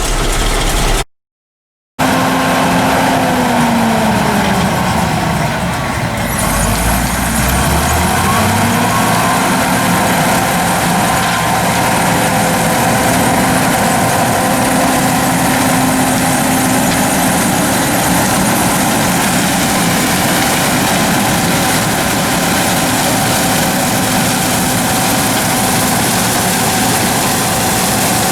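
A vehicle engine running steadily, its pitch sliding down and back up a few seconds in, then holding even. The sound drops out completely for about a second near the start.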